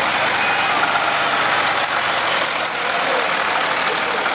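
A vehicle engine running steadily at low revs, with faint voices mixed in.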